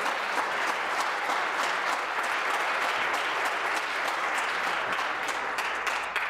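A chamber of legislators applauding at their desks: a steady round of many hands clapping that begins to thin out near the end.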